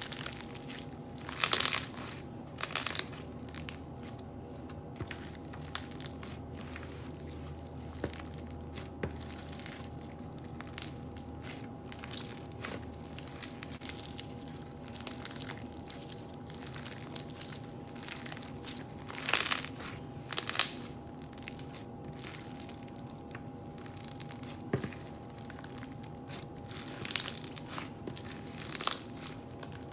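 Crunchy foam-bead slime (floam) being squeezed and pressed by hand: steady small crackling crunches throughout, with a few louder crunches that come in pairs.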